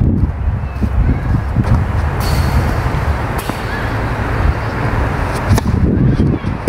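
Strong wind buffeting the microphone, with a few sharp racquet strikes on a tennis ball during a rally.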